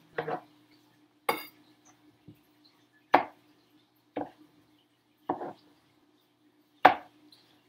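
Kitchen knife slicing button mushrooms on a plastic cutting board. The blade knocks against the board five separate times, about a second or so apart.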